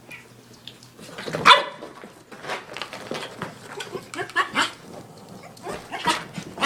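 Small dogs barking and yipping in short bursts, the loudest bark about a second and a half in, followed by a run of quicker yips.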